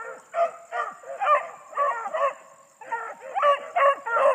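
A pack of beagles baying in full chase on a swamp rabbit's trail: overlapping bays and yelps about three a second, many of them falling in pitch at the end.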